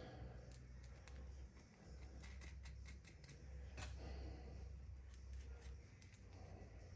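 Faint, scattered small metallic clicks of nuts and bolts handled in the fingers as a nut is threaded onto a bolt by hand, over a low hum.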